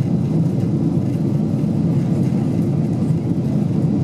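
Steady low rumble of cabin noise inside a Boeing 747-8 airliner on descent: the engines and the airflow over the fuselage, heard from a window seat.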